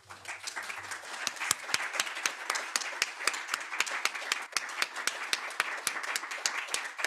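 Audience applauding, with many individual hand claps standing out.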